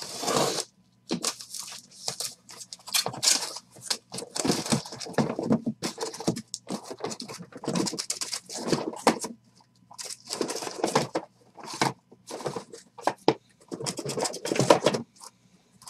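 A cardboard case being cut open with a box cutter and pulled apart: the blade slitting the packing tape, the flaps tearing open and the case dragged up off the boxes inside, a run of irregular cardboard scraping and tearing.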